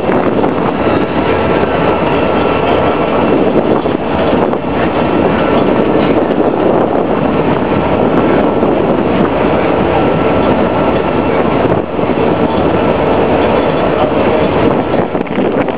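Steady rumble of a ferry boat under way, mixed with wind rushing over a phone's microphone, with a faint steady whine on top.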